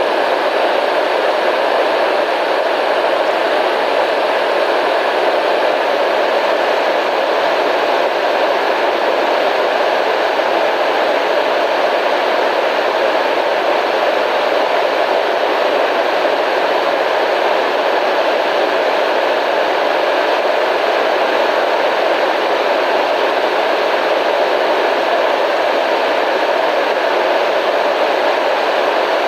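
Steady white noise: an even, unchanging hiss, strongest in the middle range.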